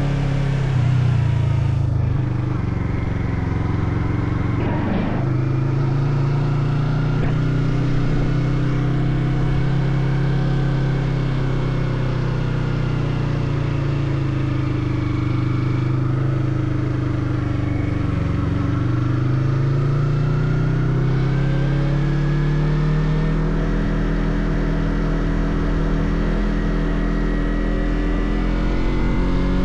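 Motorcycle engine running at road speed, heard from the rider's position. Its note holds steady, dips briefly past the middle, then rises smoothly as the bike accelerates.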